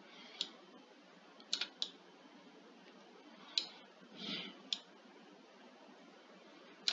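A handful of faint, sharp clicks from a computer mouse and keyboard being worked, scattered and irregular, two in quick succession about a second and a half in, with a softer brief noise just past the middle.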